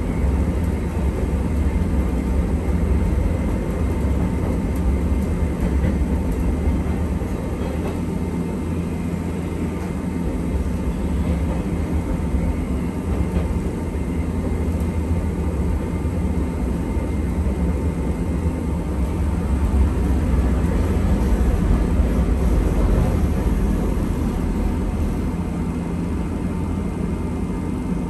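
Hankai Tramway streetcar running along its line, heard from inside the car: a steady low rumble with faint steady tones above it.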